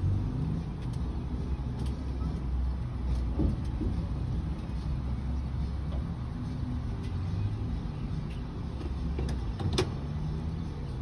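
Steady low rumble heard inside the cabin of a stationary vehicle, with a couple of faint clicks, one about three and a half seconds in and one near the end.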